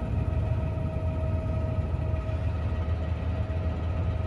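Fendt 936 tractor engine idling steadily: a low hum with a faint steady whine above it. It has just been restarted after a jump start, and it now runs normally.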